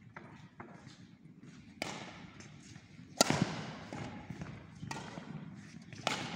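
Badminton rally: rackets striking the shuttlecock, three sharp cracks a second or two apart, the loudest about three seconds in, each ringing on in the echo of a large sports hall.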